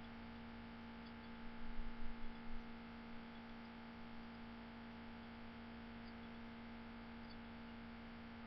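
Faint steady electrical hum on the recording, with a few soft low thumps about two seconds in.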